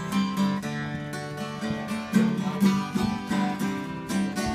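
Acoustic guitar strummed in a steady rhythm, with no singing.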